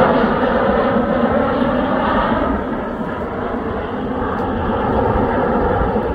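Jet engines of a Boeing 737 airliner passing low overhead with its landing gear down: a steady, loud jet noise that drops somewhat in loudness about two and a half seconds in as the aircraft moves away.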